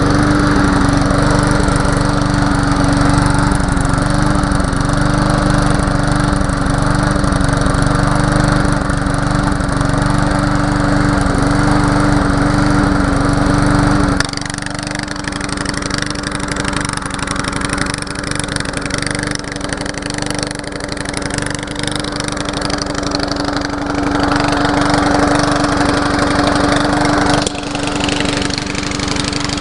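Walk-behind lawn mower's small engine running steadily at one constant speed. About 14 seconds in it suddenly gets quieter and less boomy, the engine speed unchanged.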